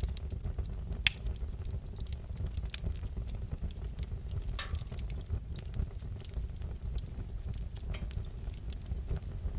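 Wood fire crackling in a fireplace: irregular sharp pops and snaps over a steady low rumble of the flames, with a louder pop about a second in.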